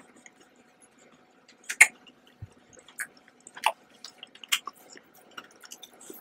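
Close-up biting and chewing of a chocolate bar: a string of crisp snaps and crunches, the loudest about two seconds in, with small mouth clicks between.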